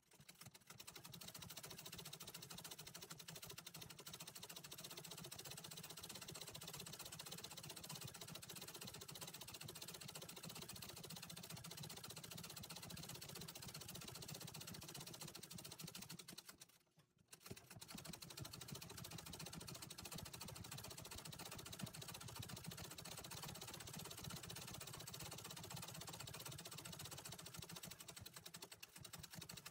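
Antique treadle sewing machine running steadily while embroidering, its needle stitching fast; it stops briefly about halfway through, then starts again.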